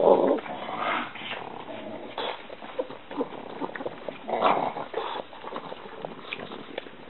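A pug making a run of short, irregular vocal noises, loudest at the very start and again about four and a half seconds in.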